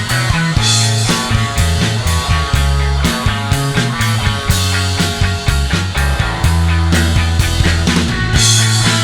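Rock band playing an instrumental passage without singing: a steady drum beat over a moving bass line, with bright cymbal-like splashes about half a second in and again near the end.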